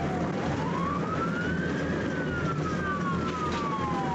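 Police car siren on a slow wail, rising in pitch for about two seconds and falling for about two more, over a steady low rumble.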